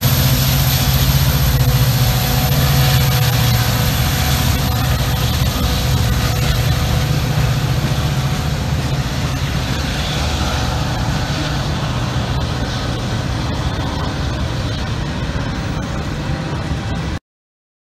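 Freight train passing: diesel-electric locomotives, an EMD SD40-2 among them, running with a steady low engine drone, then freight cars rolling by on the rails as the engine sound slowly fades. The sound cuts off suddenly near the end.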